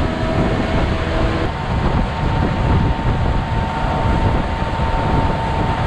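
Outboard motor of an aluminum motorboat running at speed, a steady hum whose pitch steps up about a second and a half in. Wind buffets the microphone and water rushes past the hull.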